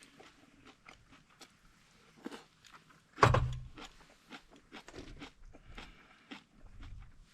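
A person eating: chewing and biting food with small crunchy clicks. One loud knock with a low thud comes about three seconds in.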